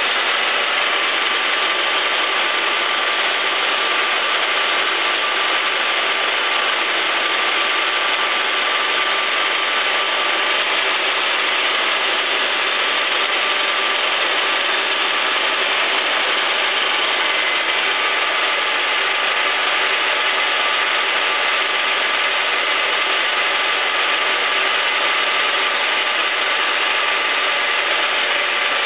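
1K62 lathe running at about 630 rpm with its headstock gears whirring, while a carbide insert takes a steady 2 mm cut along a steel shaft under power feed. An even, unchanging machine noise with faint steady tones in it.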